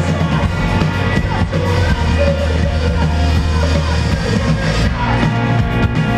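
Hardcore band playing live: loud, dense full-band music with heavy bass.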